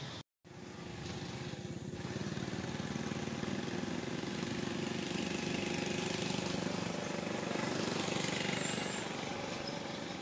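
A small engine running steadily with a rapid pulsing rumble. The sound cuts out briefly just after the start, then resumes.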